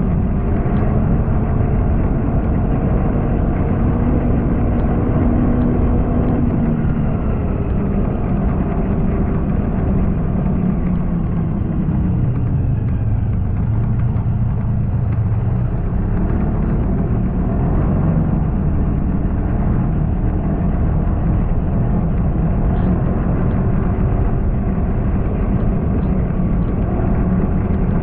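Snowmobile engine running steadily while riding along, its pitch drifting slightly up and down with the throttle.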